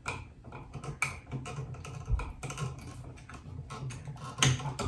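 Small screwdriver being worked into the push-in wire terminals of a wall switch to release the wires: irregular light clicks and scrapes of metal on the switch body.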